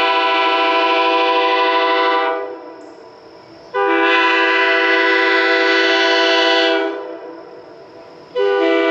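Early-1960s Canadian sand-cast Airchime K3H three-chime train horn blowing its chord in three blasts: one that trails off about two seconds in, a three-second blast in the middle, and a third starting near the end. The number 1 bell still has a slight warble.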